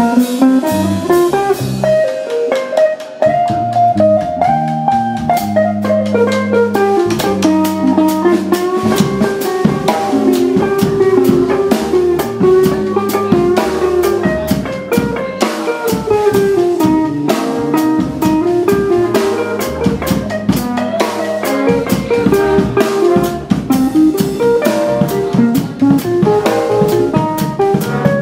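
Small jazz band playing live: a drum kit keeps time with frequent snare, rim and cymbal strikes, under guitar and bass, while a melody line rises and falls.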